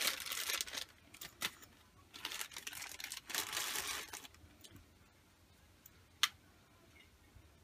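Clear plastic bag crinkling in bursts as a valve actuator motor is slid out of it, then quieter handling with a single sharp click about six seconds in.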